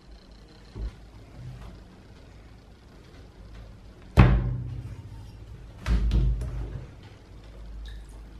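A ball of wet clay slapped down onto the potter's wheel head: a heavy thud about four seconds in, then a second, longer thud about two seconds later as it is pressed on. A low steady hum runs underneath.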